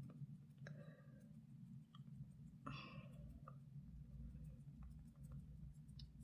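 Near silence: a low steady room hum with a few faint small clicks and a short soft rustle about three seconds in.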